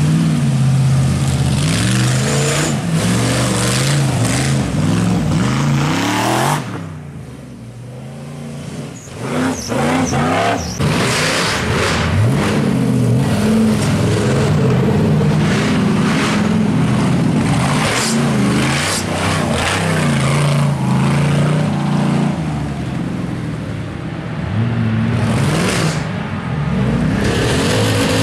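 Off-road race buggy engines revving hard and unevenly as the buggies power through a muddy track. The engine noise fades for a couple of seconds about seven seconds in, then rises again.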